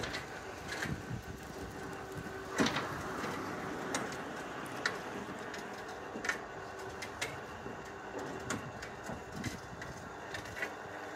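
Electric scaffold hoist winching a sheet of OSB board up the scaffold: a steady motor hum with scattered clicks and knocks, the loudest knock about two and a half seconds in.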